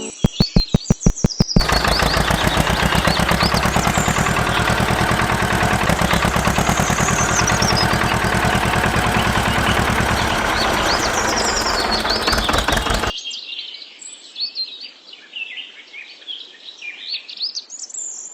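A loud machine with a fast, even pulsing, like a small engine or motor, starts with a few separate pulses, runs steadily and cuts off suddenly near the end. Birds chirp throughout and go on alone after it stops.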